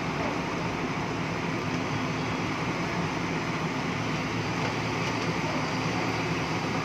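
Diesel engine of a JCB tracked excavator running steadily, an even engine noise with a constant low pitch and no revving.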